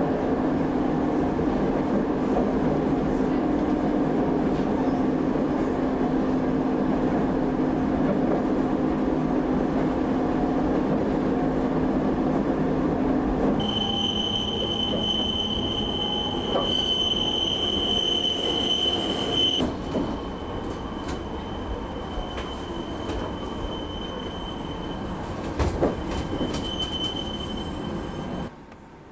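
Electric train running along the track with a steady hum and rumble; about halfway through, its wheels start a steady high-pitched squeal that is loudest for several seconds, then fades to a fainter squeal, with a single knock near the end. The sound cuts off abruptly just before the end.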